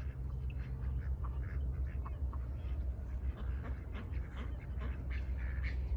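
Ducks quacking in a run of short calls, scattered and overlapping, over a steady low rumble.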